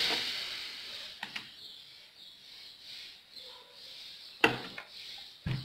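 Sticky, half-set homemade slime being kneaded and pulled out of a bowl by hand, with a few sharp wet smacks: one about a second in and two near the end.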